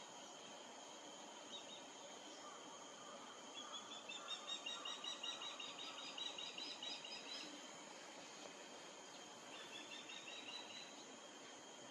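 A songbird sings a fast series of repeated high notes lasting about four seconds, then a shorter series near the end, over a steady high-pitched insect drone.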